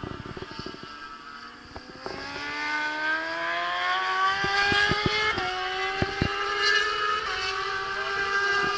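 Racing motorcycle engines approaching on the circuit, getting louder from about two seconds in, their note climbing as they accelerate, with a short dip in pitch at a gear change about halfway through.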